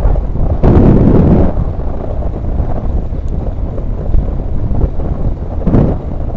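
Wind rushing and buffeting over the camera microphone of a mountain bike riding along a paved road, a loud low rumble that swells in gusts about a second in and again near the end.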